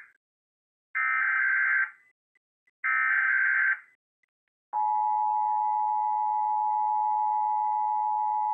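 Emergency Alert System header and attention signal. Two one-second screeching SAME digital data bursts, then about five seconds in the steady two-tone EAS attention tone (853 and 960 Hz) starts and holds, marking the start of a Required Monthly Test alert.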